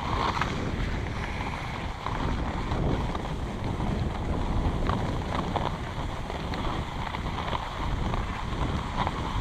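Wind buffeting the camera's microphone, with the steady hiss of skis sliding over packed snow while being towed up a drag lift, and a few faint scrapes.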